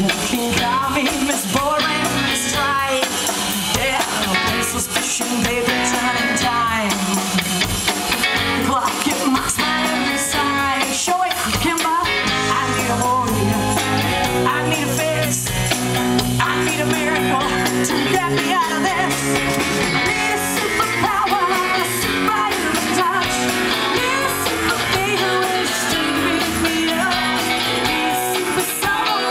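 Live rock band playing an original song: electric guitars and a drum kit, with a woman singing lead.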